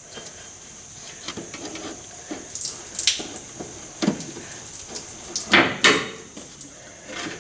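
A 2000 Ford F-150's inline fuel filter being worked and snapped out of its clip-in holder: irregular clicks, scrapes and knocks of plastic and metal, with the loudest pair about five and a half to six seconds in.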